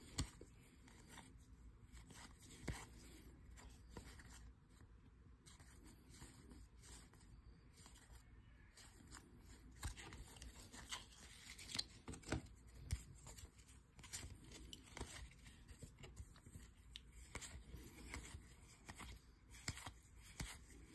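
Faint, scattered clicks and rustles of baseball trading cards being slid one at a time off a stack held in the hand. The flicks come more often and a little louder in the second half.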